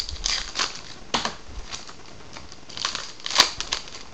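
A baseball card pack wrapper being torn open and crinkled by hand, in several short crinkling bursts, the sharpest about three and a half seconds in.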